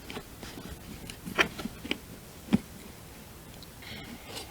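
A few light clicks and knocks of metal rifle parts being handled as the lever-action's trigger, lever and bolt mechanism is worked out of the receiver.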